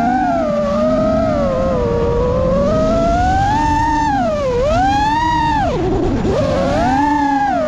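FPV quadcopter's T-Motor F60 brushless motors and propellers whining, the pitch rising and falling with the throttle. The pitch dips about four and a half seconds in, then drops deeply around six seconds and climbs back: a throttle chop and punch-out through a dive.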